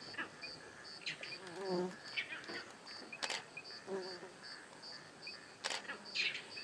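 An insect chirping in a steady rhythm of short high pulses, about three a second, with a few sharp clicks standing out above it.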